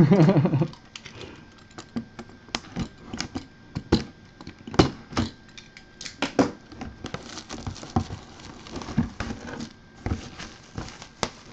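Hands opening a sealed cardboard box: tape and clear plastic wrapping crinkling and tearing in irregular clicks and rustles.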